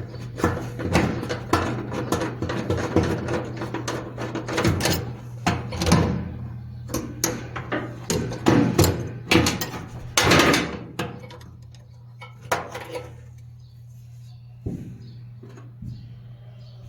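Metal knocking and clattering as dryer parts and tools are handled, over a steady low hum. The clatter is dense at first and thins to a few single knocks after about twelve seconds.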